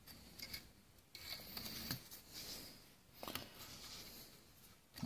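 Faint scratchy rubbing of cotton swabs scrubbing inside a steel rifle receiver, in uneven strokes, with a small click a little over three seconds in.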